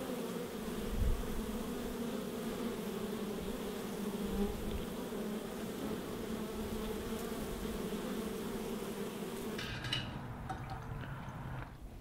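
Honey bees buzzing at a hive entrance: a steady hum at two pitches, one low and one higher, which stops about ten seconds in.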